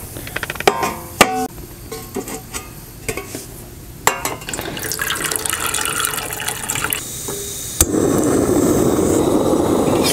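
A stainless steel mess tin clinking and ringing as it is handled on a Soto ST-310 camp stove. Then water runs from a water carrier's tap into the tin. Near the end comes a sharp click, and after it a loud steady hiss that fits the stove's gas burner running.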